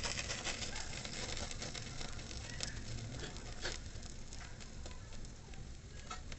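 Wood fire in a havan fire pit crackling and hissing, with a few scattered sharp pops.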